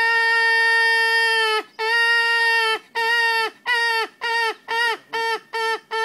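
A man imitating a trumpeter hornbill with his voice. He holds one long wailing call of about two seconds, then gives about eight shorter calls at the same pitch, which come shorter and quicker toward the end.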